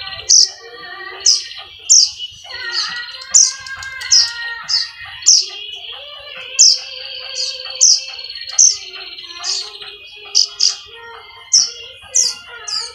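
Baby birds' begging calls: sharp, high chirps, repeated about once or twice a second, from chicks waiting to be hand-fed.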